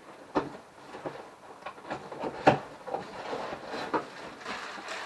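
Cardboard box and packing rustling and knocking as new parts are rummaged out of it by hand, with a sharp knock about half a second in and the loudest knock about two and a half seconds in.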